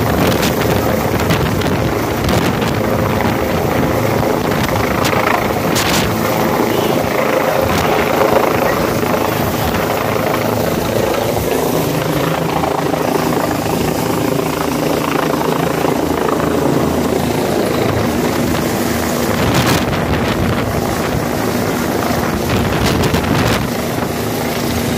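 Police helicopter hovering low overhead, its rotor and turbine running at a steady level.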